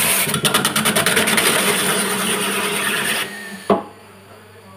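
Automatic young-coconut peeling machine (MKS-KLP03) shaving the husk off a spinning coconut: a loud, rapidly pulsing rasp that stops a little past three seconds in. A single sharp knock follows about half a second later.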